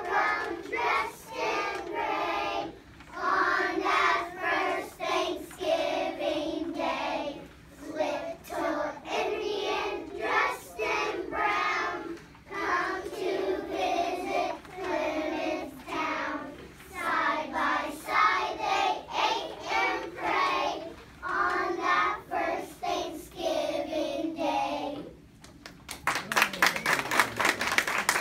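A group of young children singing a song together; near the end the singing stops and the audience claps.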